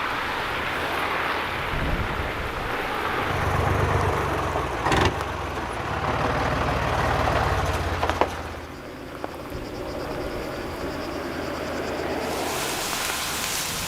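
A vehicle engine running under a steady hiss of outdoor noise, with two short knocks about five and eight seconds in.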